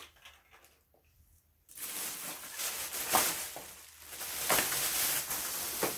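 Plastic shopping bags rustling and crinkling as items are moved about and pulled out. It starts about two seconds in, after a near-quiet start.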